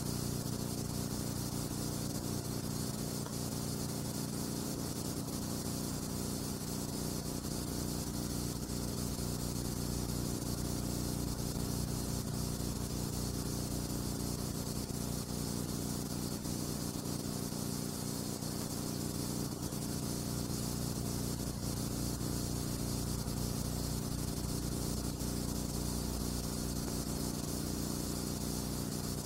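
Steady low electrical hum with hiss over it, unchanging throughout: the background noise of a silent film's transfer, with no other sound.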